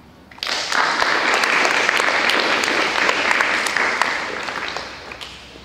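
Audience of schoolchildren and teachers clapping, starting suddenly about half a second in and dying away near the end.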